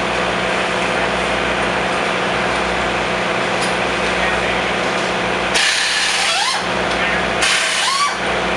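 Two short bursts of a power tool whirring, the first about a second long and the second about half a second, each rising in pitch as it spins up, over a steady machine hum of pit work on a Top Fuel engine.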